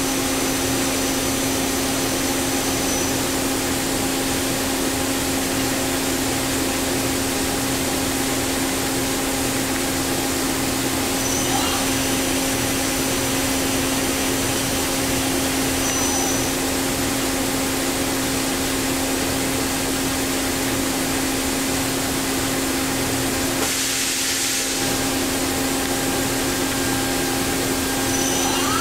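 Daewoo Puma 2000SY CNC turning center standing powered up with its spindle stopped, giving a steady machine hum with a constant tone over a hiss.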